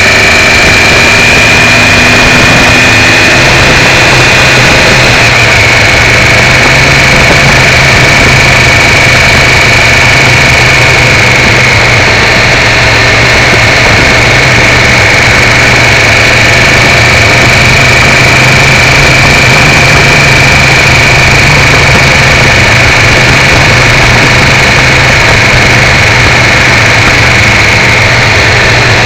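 Triumph 955i motorcycle's three-cylinder engine running steadily on the road, with wind noise and a steady high whine over it, picked up loud and poorly by a cheap keyfob camera strapped to the foglight.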